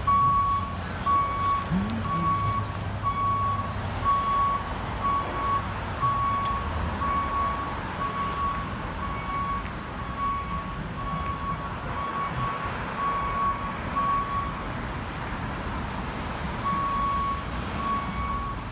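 Fire engine's back-up alarm beeping about once a second while the truck reverses, over the low rumble of its engine. The beeping pauses briefly near the end, then starts again.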